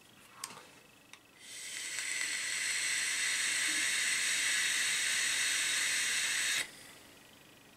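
A long draw on an iJoy Goodger vape tank: two light clicks, then a steady hiss of air pulled through the tank for about five seconds that cuts off sharply.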